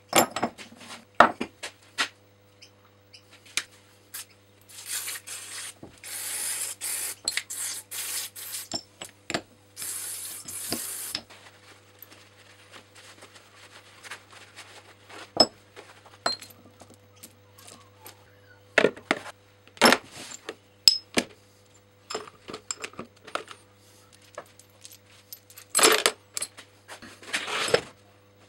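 Small steel vise jaw plates and screws clinking and clattering as they are handled, set down on a wooden bench and dropped into a plastic tub. A rag rubs over them for several seconds in between, and the loudest clinks come near the end.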